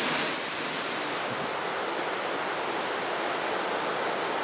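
Steady rush of ocean surf and wind, an even, unbroken noise.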